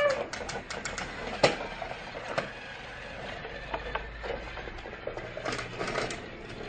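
Scattered light clicks and taps at uneven intervals from plastic toy train set pieces being handled, with one sharper click about one and a half seconds in.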